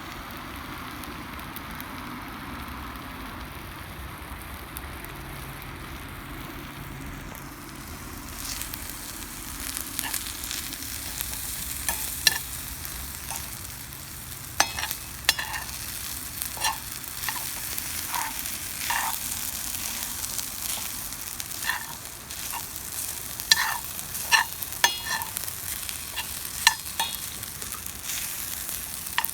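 Food frying in a Turk wrought-iron frying pan over a strong fire: a steady hiss at first, then a louder sizzle from about eight seconds in, broken by irregular scrapes and clacks of a utensil stirring against the pan.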